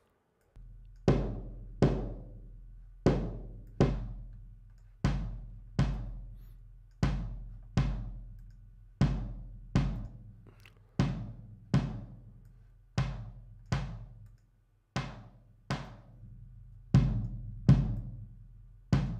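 Recorded kick drum track playing solo: hits come in pairs repeating about every two seconds, each with a long low ringing boom and a fading tail of room sound, a bit too much room for the mixer's taste.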